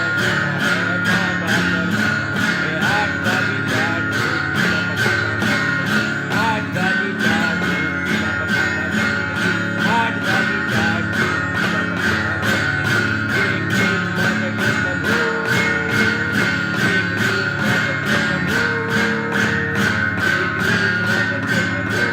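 Background music with a strummed guitar over a steady beat.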